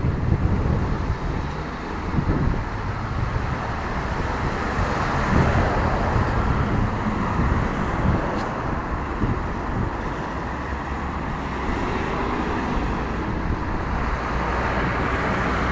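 Street traffic: cars and other motor vehicles passing along a busy city street, a steady rumble of engines and tyres.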